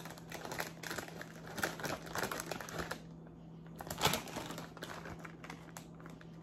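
Chip bag crinkling as it is handled: dense crackling for about three seconds, then scattered crinkles with one louder one about four seconds in.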